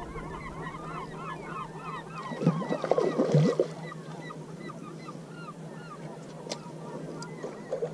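A hooked smallmouth bass thrashing and splashing at the water's surface for about a second, roughly three seconds in. Behind it many birds call in a continuous chorus of short repeated calls. Two sharp ticks come near the end.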